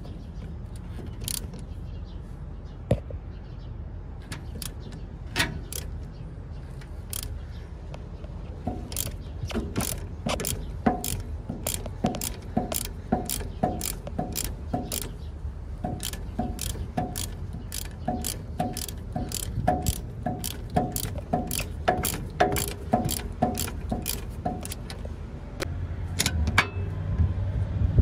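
A socket ratchet on an extension clicking as it is worked back and forth on a sway bar end link nut: a few scattered clicks at first, then a steady run of about two clicks a second. Near the end a lower rumble rises.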